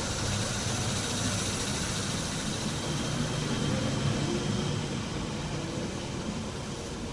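Inside an electric commuter train car as it runs: a steady rumble and hiss of wheels on rail and car noise, with a faint steady motor whine, easing slightly toward the end.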